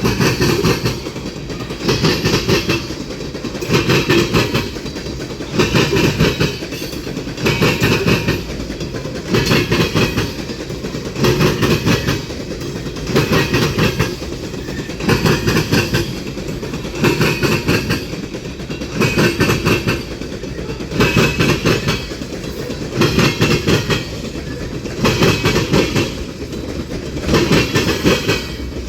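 Freight train cars rolling past, their wheels clacking over rail joints in clusters that repeat about once a second over a steady rolling rumble.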